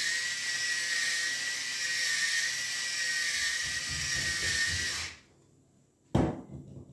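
Electric salt grinder running with a steady whine as it grinds, stopping about five seconds in. A single knock follows about a second later.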